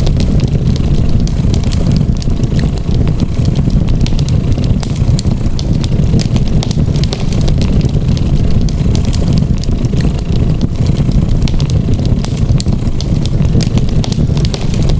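A cat purring as a steady low rumble, with a wood fire crackling over it in scattered sharp snaps.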